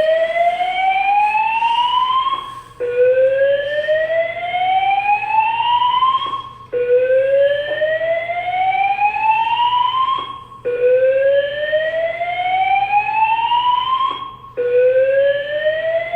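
Honeywell Notifier voice-evacuation fire alarm speaker sounding its whoop evacuation tone: a loud tone gliding slowly upward for about four seconds, breaking off and starting again low, over and over.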